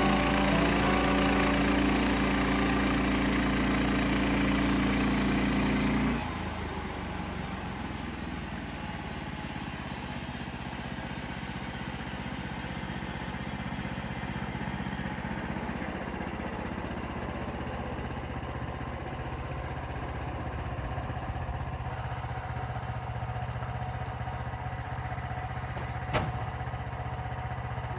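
Gas engine of a manual portable band sawmill running hard with the band blade cutting for about the first six seconds, then dropping suddenly to a quieter, steady idle. One sharp click a few seconds before the end.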